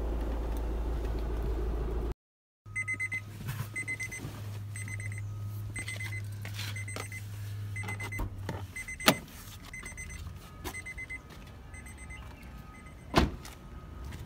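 Honda Amaze's electronic warning chime beeping repeatedly in short quick groups, over a steady low hum that stops partway through. A sharp click comes about nine seconds in and a loud thump near the end.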